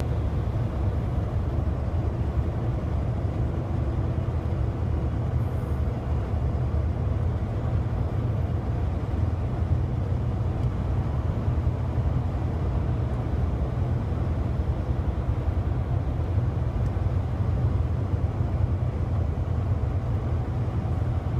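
Steady low road and engine rumble of a car heard from inside its cabin, driving at speed through a highway tunnel.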